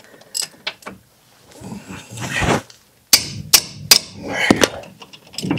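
Ratchet and socket working on a brake caliper bracket bolt, with tool clicks and several sharp knocks a little past the middle.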